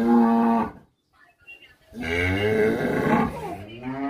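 Cattle mooing. A long call trails off within the first second, another long moo comes about two seconds in, and a lower call starts near the end.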